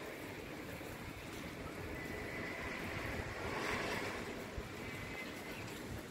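Steady rain falling, an even hiss of rainfall, with an uneven low rumble of wind on the microphone.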